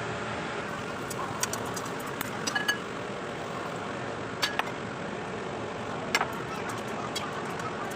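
Light metallic clinks of cookware and utensils, a few scattered ones, over a steady hiss.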